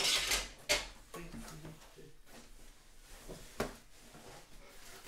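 Cardboard box and packaging being handled: a loud scrape at the start, then rustling with a couple of sharp knocks.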